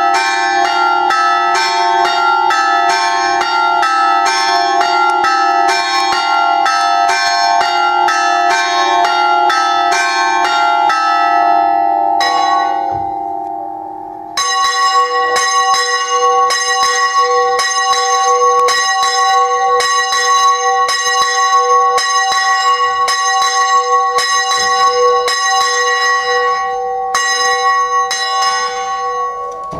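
Two church bells in a stone belfry ringing a rapid repique peal, struck in quick succession at about two to three strikes a second. About twelve seconds in the ringing fades out. It then cuts back in with a peal of different pitches, which goes on until it dies away near the end.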